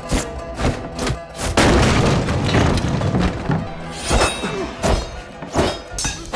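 Martial-arts film fight soundtrack: a rapid run of punch and body-impact sound effects over the score, with a heavy crash about a second and a half in.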